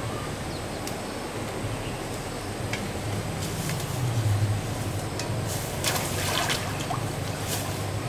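Small engine-driven water pump running steadily with a low hum, with water splashing about six seconds in.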